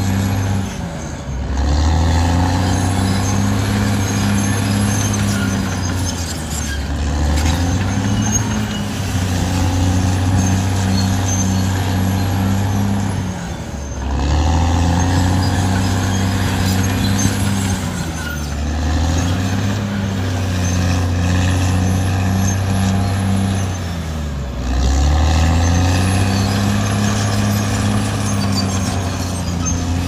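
Caterpillar D6R XL bulldozer's diesel engine running hard. Its pitch sags and climbs back about every five to six seconds, five times in all, as the machine works back and forth.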